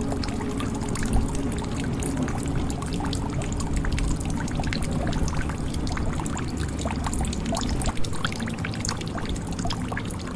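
Water pouring and trickling into a jug: a continuous splashing stream dotted with many small drop ticks.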